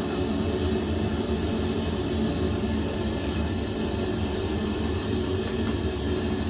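A forge running with a steady roar and a faint constant hum, with no hammer blows.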